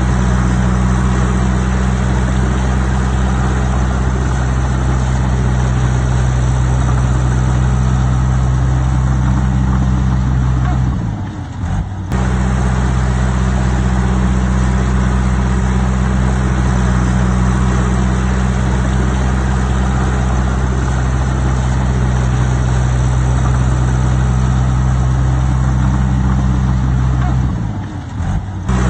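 Heavy construction machine's diesel engine running steadily and loudly, briefly dipping in level and pitch twice, about eleven seconds in and near the end.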